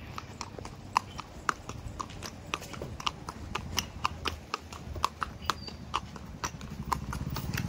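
A ridden horse's hooves clip-clopping in a steady, even rhythm of sharp clops, about three or four a second.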